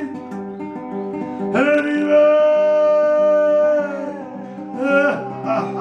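A man singing to his own classical guitar accompaniment, holding one long sung note in the middle while the guitar chords ring under it; strummed chords pick up again near the end.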